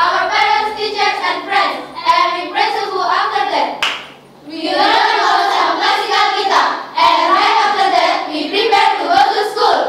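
A group of girls singing in unison in phrases, with a short break about four seconds in, preceded by a single sharp clap.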